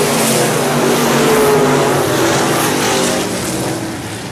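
Dirt-track stock cars racing around the oval at speed, engines running hard; one car passes close by and is loudest about a second and a half in, then the sound eases off near the end.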